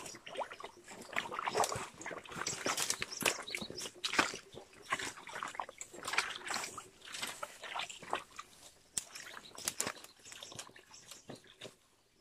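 Footsteps of rubber boots splashing through a shallow muddy stream and crunching over dry leaf litter, an irregular run of splashes and rustles.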